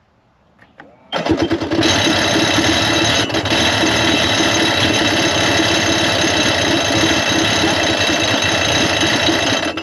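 Sea-Doo XP's 951 two-stroke twin cranking on its electric starter without catching. It starts about a second in and cuts off suddenly near the end. The owner blames the no-start and the starter's erratic on-off behaviour on a failed MPEM computer.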